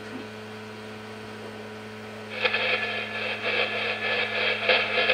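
Spirit box sweeping through radio stations: a steady electrical hum, then from about halfway through, choppy bursts of radio static, several a second.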